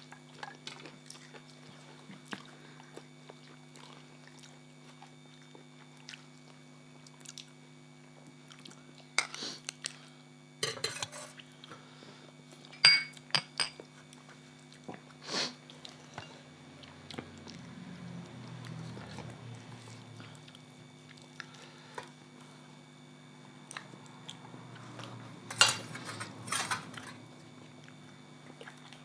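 Utensils and dishes clinking and scraping now and then during a meal, in sharp scattered clicks, with a steady low hum underneath.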